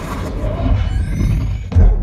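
Film score music swelling, with a sudden deep thud near the end.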